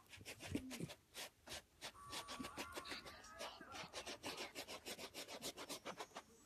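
Miniature dachshund snuffling along the floor with its nose pressed down: a rapid run of short sniffs and nose rubs against the surface.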